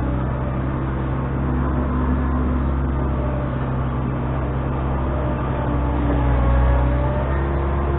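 Engine of a dirt-moving machine running steadily under work, a deep even drone with a few faint whining tones that shift in pitch.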